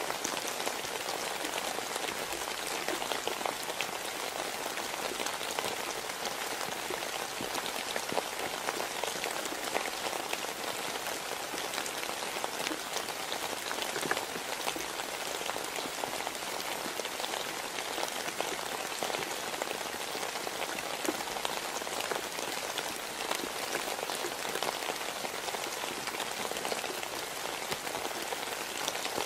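Steady rain falling, an even hiss dotted with many small drop impacts, unchanging throughout.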